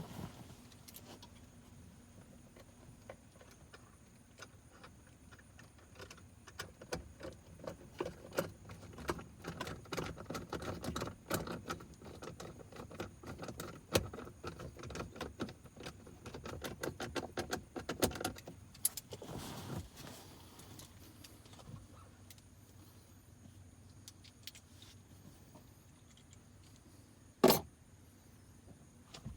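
Hands working the plastic and metal parts of a GM truck's center console latch and handle with small tools: a run of quick clicks, taps and clinks, busiest in the middle, with one loud short knock near the end.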